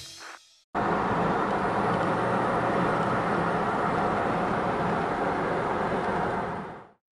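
Steady road and engine noise of a car driving along, heard from inside the cabin; it starts abruptly about a second in and fades out near the end.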